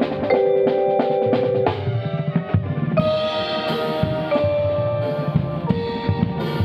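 Vibraphone played with four mallets, its chords ringing on and changing every second or so, over drums and other ensemble percussion.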